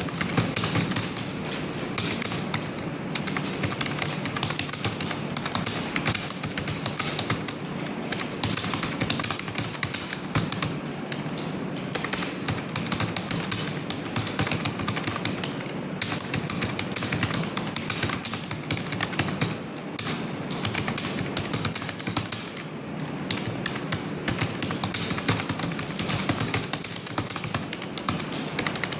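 Typing on a computer keyboard: a fast, steady run of keystrokes without a real pause.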